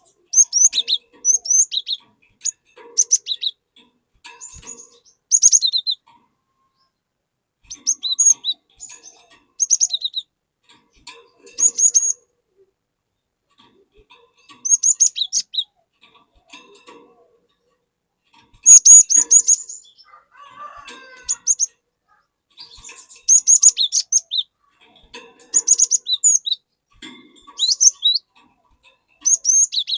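Cinereous tit (glatik batu) singing: short bursts of quick, high, whistled notes, repeated every second or two with brief pauses between phrases.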